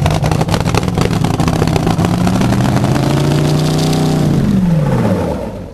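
Supercharged dragster engine running loudly and choppily, rising a little in revs partway through, then winding down and dying away near the end as it is shut off.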